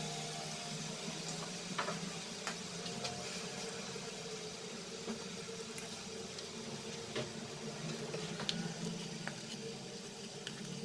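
Chicken livers simmering in soy sauce and vinegar in a wok: a steady bubbling sizzle with scattered small pops and clicks.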